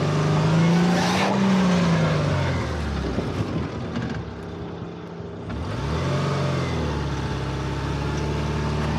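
Subaru's flat-four engine revving under load as the car crawls up through deep ruts: the revs rise about a second in, ease off in the middle, then build again and hold. The clutch is slipping, oil-soaked from a leaking rear main seal, so the engine struggles to get power to the wheels.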